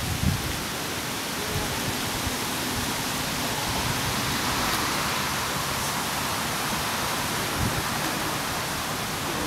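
Steady hiss of rain falling, with a few brief low thumps near the start and again later.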